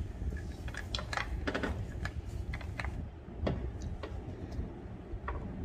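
Irregular small clicks, taps and rustles as a blood-pressure cuff and its rubber tubing are handled and packed into the metal case of a mercury sphygmomanometer, busiest in the first three seconds and thinning out after.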